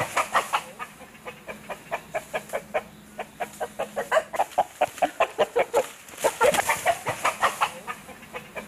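Free-range chickens clucking, a rapid run of short clucks at about four or five a second, over a steady high hiss.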